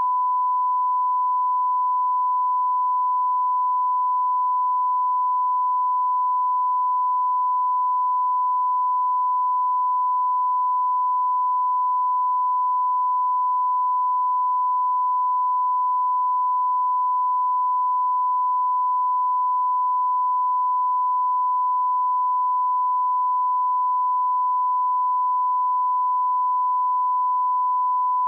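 Broadcast line-up tone: a steady 1 kHz sine test tone held at constant level without a break, as laid at the head of a programme delivered to TV broadcast standard.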